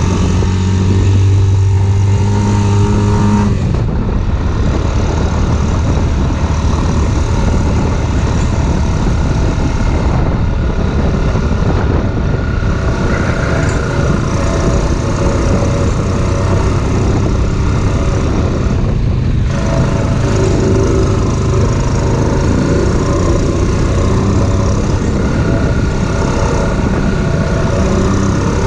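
An off-road vehicle's engine running steadily under throttle while riding, with a constant rush of noise over it. The engine note shifts briefly about four seconds in and again near twenty seconds.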